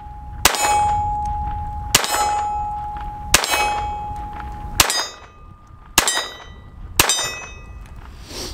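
Six shots from a Ruger LCP II .22 LR pistol, about a second to a second and a half apart. A steel gong target rings with a steady tone after each of the first four shots.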